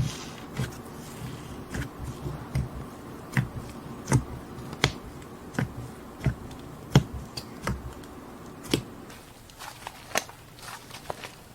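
Crunchy slime being squeezed and pressed by hand. Sharp crackling pops come a little more than once a second, then turn fainter and quicker near the end.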